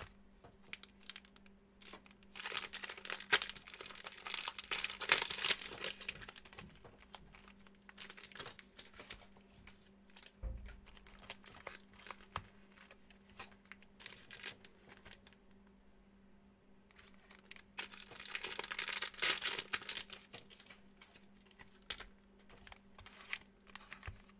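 Foil trading-card pack wrappers crinkling and tearing open in two longer bursts, with lighter crackles and clicks of cards being handled in between.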